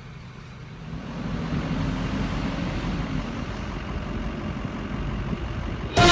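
A motor vehicle engine rumbling, growing louder about a second in and then running steady. Music cuts in at the very end.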